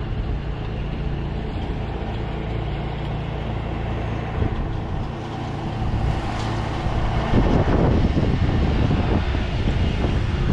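A steady low engine hum, with a louder, uneven low rumble coming in about seven seconds in.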